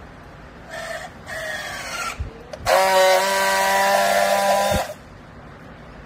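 Battery-powered handheld plastic-strapping tool working on a yellow strap around a bale: two short whirring motor pulses as it tensions the strap, then a louder steady buzz of about two seconds as it friction-welds the strap seal, stopping abruptly with a click.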